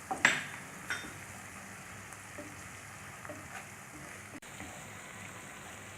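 Onions and ginger garlic paste frying softly in oil, a faint steady sizzle, with two spatula knocks against the pan in the first second and a few light scrapes after.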